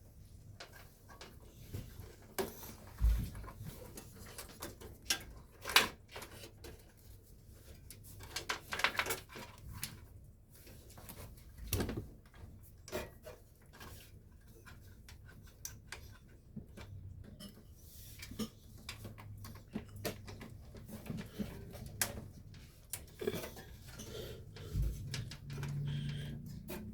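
Irregular clicks, taps and knocks of computer parts being handled and fitted into a PC case, with a brief low hum near the end.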